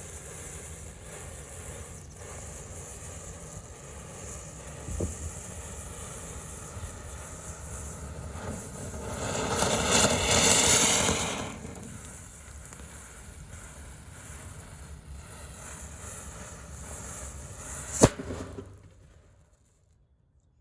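Firecrackers going off: a hissing burst swells for about three seconds midway, then a single sharp crack near the end.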